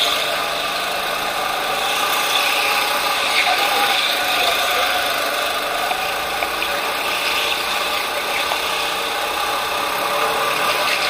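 Racing go-kart running at speed through a lap, heard from on board: a steady motor drone with slight rises and falls in level.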